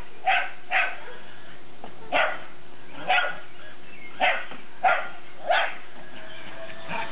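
A dog barking, about seven short barks at uneven intervals.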